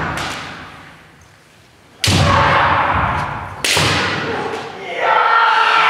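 Kendo strikes: a sharp stamping hit on a wooden gym floor about two seconds in and another near four seconds, each echoing through the hall, mixed with shouts and then a long drawn-out kiai shout from about five seconds in.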